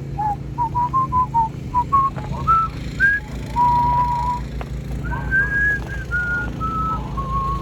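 A person whistling a tune, stepping between short and held notes, over a low steady rumble.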